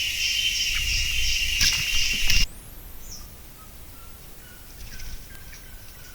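A loud, steady insect chorus of crickets with a pulsing higher note, which cuts off abruptly about two and a half seconds in. A couple of sharp clicks come just before the cut, and afterwards only a quiet background with faint, thin bird calls remains.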